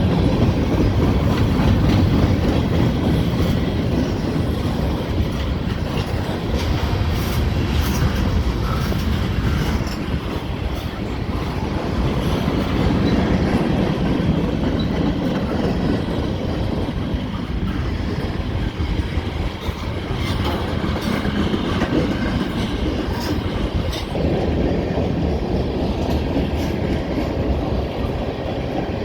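CSX freight train's cars rolling past at close range: a steady, loud rumble of wheels on rail, with the clickety-clack of wheels crossing rail joints.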